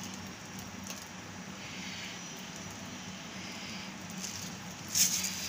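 Cooking oil poured in a thin stream into a heated metal pan, a soft steady pour, with a short sharp clatter near the end.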